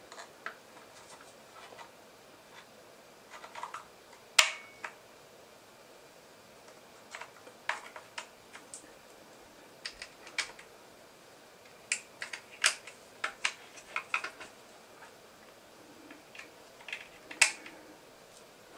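Irregular clicks and taps of 3D-printed plastic parts being handled and snapped together: a body cover fitted onto a toy crossbow frame and small pins pushed in. The loudest knock comes about four seconds in, with quick clusters of clicks later on.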